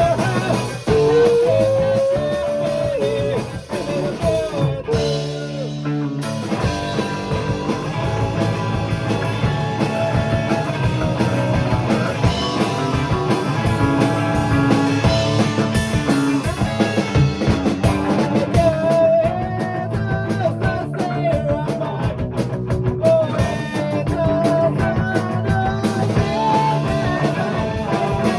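Punk rock band music: electric guitars, bass and drum kit with a sung melody, dropping back briefly about five seconds in before the full band comes back in.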